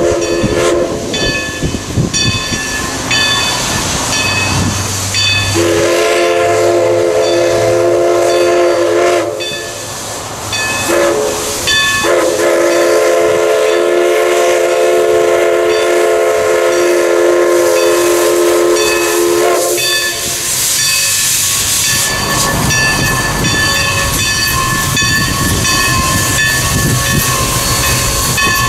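1920 ALCO 2-6-0 Mogul steam locomotive, Everett Railroad No. 11, blowing its steam whistle for a road crossing. The end of a long blast is followed by a second long blast, a short blast and a final long blast (long-long-short-long), which ends about two-thirds of the way in. Steam hisses and a bell rings steadily underneath.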